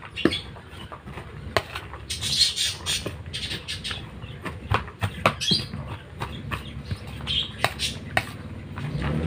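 A metal spoon and hand stirring chopped leafy vegetables in a plastic basin: irregular clicks, taps and rustling. Small caged parrots chirp and squawk in short bursts several times.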